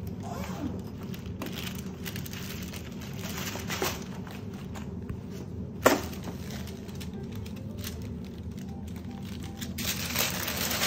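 A black portfolio case being opened and the white protective paper over the paintings inside handled: irregular rustling and crinkling of paper with small knocks, over a steady low hum. One sharp click about six seconds in is the loudest sound, and the paper rustles more densely near the end.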